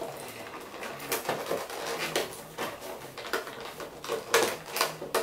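Cardboard toy box and its packaging tape being worked open by hand: irregular scratching, rustling and clicking, with a louder scrape about four and a half seconds in.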